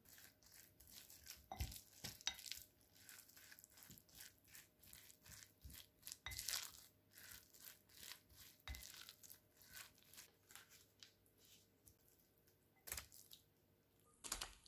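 Spoon stirring and scraping seasoned rice in a glass bowl: a quick, uneven run of soft scrapes and taps, with a couple of louder knocks near the end.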